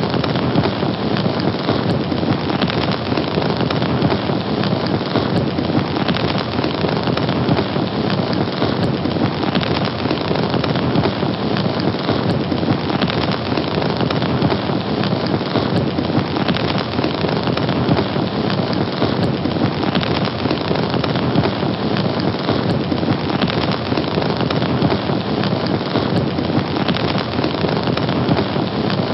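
Fire burning with a steady, dense crackle.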